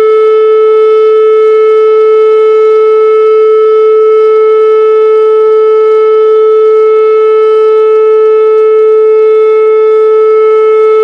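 Emergency Alert System (EAS) alarm tone: one loud, steady, unbroken tone held without any change in pitch.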